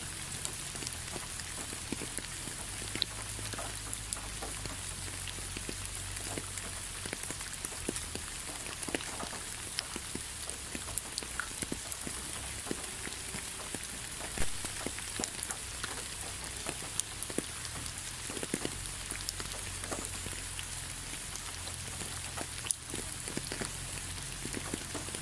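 Steady rain falling, an even hiss with scattered single drops tapping close by.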